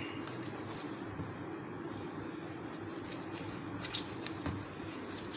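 Oiled hands kneading soft yeast dough on a stone counter: faint, irregular squishing and pressing sounds over a steady low hum.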